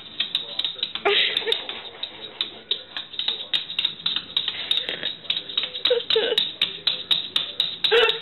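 A small dog's claws clicking quickly and evenly on a wooden floor, about four taps a second, as the dog is held upright on its hind legs.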